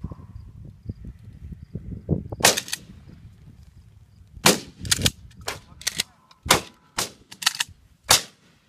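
Dove hunters' shotguns firing around the field: about ten shots, a quick double about two and a half seconds in, then a rapid irregular string, some loud and close, others fainter and farther off. Wind rumbles on the microphone in the first couple of seconds.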